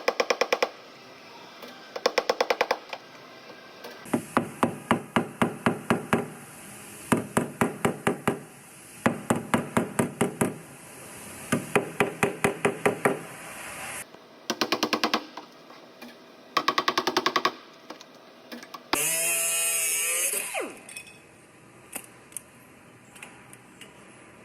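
Rapid strikes on sheet metal, about ten a second, come in about eight bursts of roughly a second each while a dented car quarter panel is worked and pulled. Near the end a louder two-second mechanical sound with a wavering pitch follows.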